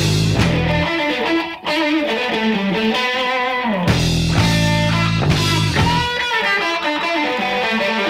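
Blues-rock played from a 1969 vinyl LP: an electric guitar plays a lead with bent, sliding notes. The bass and drums drop out for a few seconds at a time, about a second in and again near six seconds.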